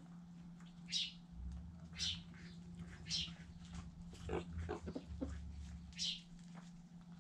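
Backyard chickens clucking low and pecking at scattered grain, with a few short sharp scratchy sounds and a steady low hum underneath.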